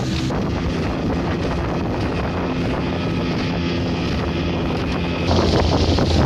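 Small boat's outboard motor running steadily at speed, with wind buffeting the microphone and water rushing past the hull. The drone gets louder near the end.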